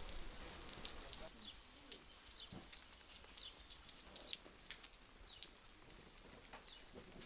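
Light rain falling: faint, scattered drops and drips.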